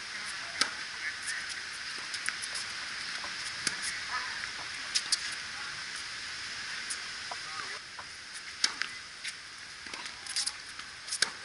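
Tennis ball struck by racquets and bouncing on a wet hard court during a point, starting with the serve about half a second in: sharp pops at irregular intervals over a steady hiss.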